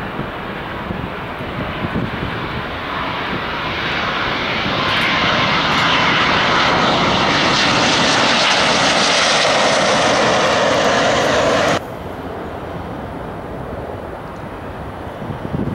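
Twin-engine jet airliner on final approach passing low overhead: engine noise with a whining tone, growing louder over several seconds. It cuts off abruptly about twelve seconds in, leaving quieter outdoor background noise.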